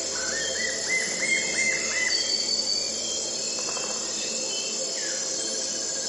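Dawn nature soundscape: a bird sings a quick run of about seven repeated rising-and-falling notes in the first two seconds, over a steady high insect trill.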